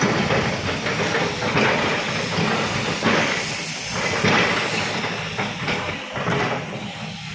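Volvo crawler excavator working, its engine and hydraulics running under load as the bucket scrapes and pushes through loose crushed stone. A rough, noisy rush that swells several times, with a few knocks of stone.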